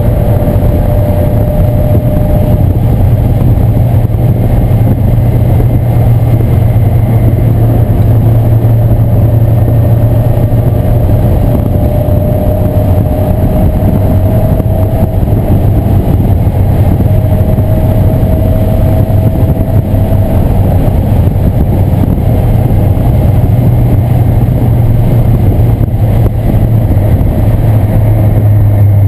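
1997 Mazda Miata's 1.8-litre four-cylinder engine running hard while lapping a race track. Over a loud, steady low rumble, a thin tone rises slowly three times as the car accelerates.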